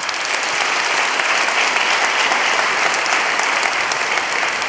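A large audience applauding, a dense steady clapping that holds at full strength throughout.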